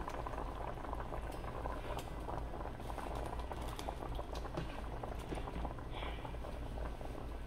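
Large pot of cow skin and water boiling steadily, with many small crackles and pops.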